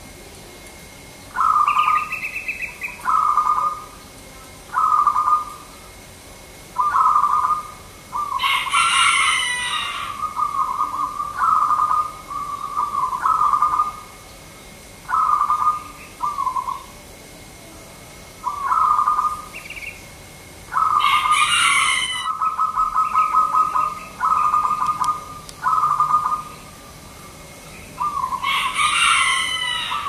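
Zebra dove (perkutut) cooing: short trilling coos repeated every second or two, some stretched into longer rolling trills. Three times, about 9 s in, about 21 s in and near the end, a louder, higher call from another bird sounds over the cooing.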